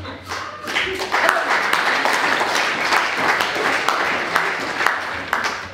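Audience applauding, a dense patter of many hands clapping that builds about a second in and fades near the end.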